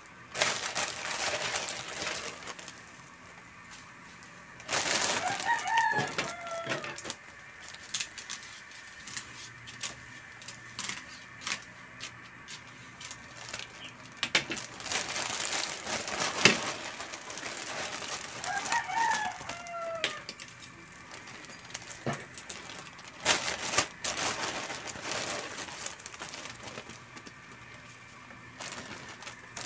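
A rooster crowing twice, about six seconds in and again near twenty seconds, each call falling in pitch at its end. Between and around the calls come stretches of hissing noise and a few sharp clacks.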